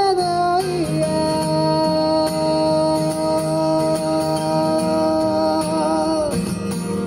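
Male voice singing an original J-pop ballad over acoustic guitar. The voice settles into one long held note that wavers near the end and breaks off about six seconds in.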